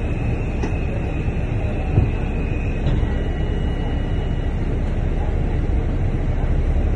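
Cabin rumble of a London double-decker bus standing at a stop with its engine idling. A faint high whine runs through it and drops slightly in pitch about three seconds in.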